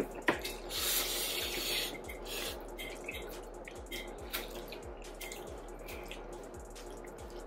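Close-up mouth sounds of someone eating Korean spicy chicken ramen: a slurp about a second in, then a run of small wet clicking and smacking sounds of chewing.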